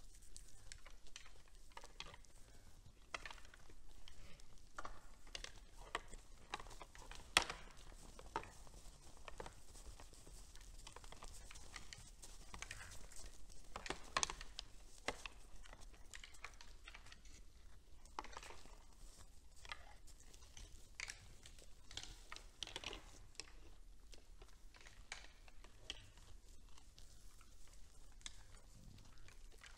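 Red deer moving and feeding at a hay pile in snow: faint, irregular clicks, crackles and crunches, with sharper knocks about seven and fourteen seconds in.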